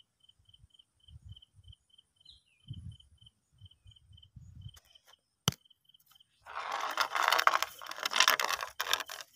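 Tall grass rustling and scraping loudly against a bamboo fishing rod as it is lifted out through the stems, over a cricket chirping steadily about four times a second. A single sharp click comes about halfway through.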